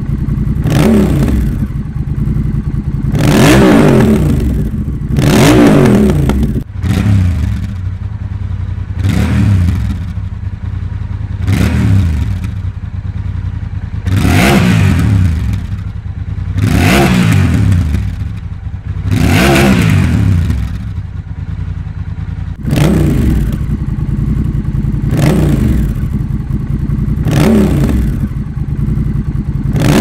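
Honda Rebel 1100's 1084 cc parallel-twin engine idling and blipped again and again, each rev rising and falling, about one every two to three seconds. The sound cuts abruptly twice, at about 7 and 23 seconds: the middle stretch is the stock Honda muffler, and the stretches either side are the Coffman's Shorty slip-on exhaust.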